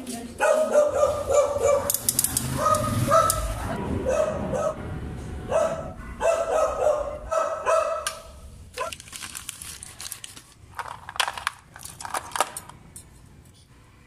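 A dog barking repeatedly in short, pitched barks, followed by a few seconds of metallic clicking and rattling from bicycle parts being handled.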